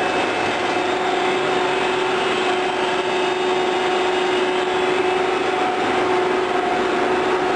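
Plastic pipe extrusion line machinery running: a steady mechanical drone with a constant hum.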